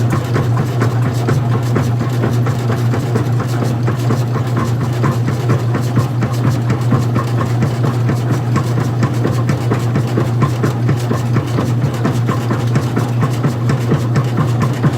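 Front-loading washing machine running: a steady low motor hum with constant fast, irregular clicking and rattling.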